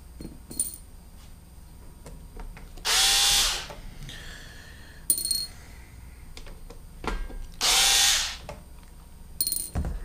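Small cordless electric screwdriver running in two short bursts, about three and eight seconds in, backing screws out of a Roomba's motherboard. Light clicks come between the bursts.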